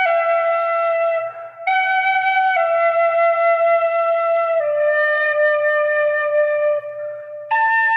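Celtic flute playing a slow melody of long held notes that step downward in pitch, with a short break about one and a half seconds in and another near the end, where a higher note starts.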